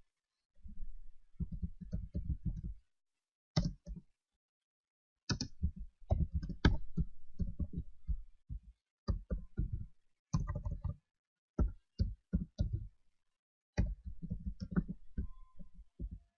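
Computer keyboard typing: runs of quick, dull keystrokes with short pauses between them.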